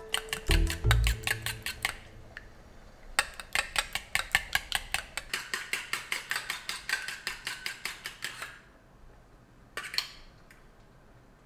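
Metal fork whisking miso sauce in a small stainless steel bowl, clinking quickly and evenly against the sides at about six strokes a second. The stirring pauses about two seconds in and stops near eight and a half seconds, with one last clink about ten seconds in.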